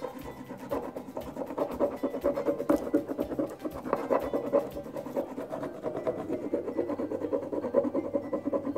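A burnishing tool rubbed rapidly back and forth over the backing sheet of a rub-on furniture transfer laid on a painted wooden box: a fast, continuous scratchy rubbing. The rubbing is pressing the transfer design off the sheet onto the paint.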